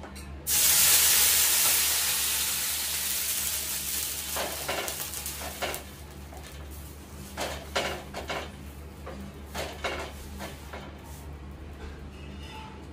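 Hot cast iron tawa sizzling sharply about half a second in, the hiss dying away over the next few seconds. A few short knocks and scrapes of a utensil on the pan follow.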